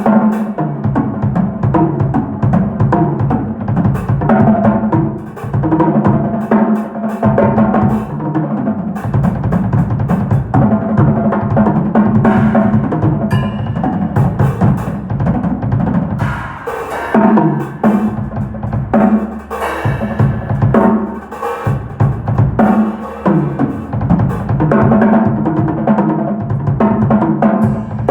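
Drum kit played continuously, bass drum and snare struck in a busy pattern with rolls and fills.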